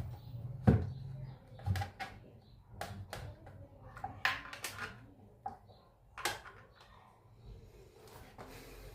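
Scattered clicks, knocks and rattles of hands and tools working inside an opened stereo speaker cabinet, with a thump about a second in the loudest.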